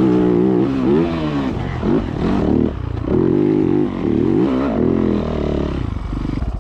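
Dirt bike engine revving under throttle, its pitch climbing and dropping several times as the rider accelerates and shifts, then cutting off abruptly at the end.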